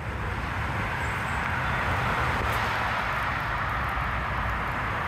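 Loud, steady rush of fast road traffic on the nearby A64 dual carriageway, tyre and engine noise blended into one continuous sound with a low rumble beneath.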